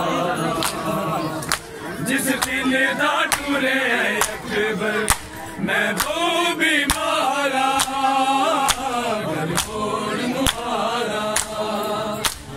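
Men's voices chanting a Muharram noha (lament) in a slow refrain, over sharp open-hand slaps on bare chests (matam) that strike about once a second and keep the beat.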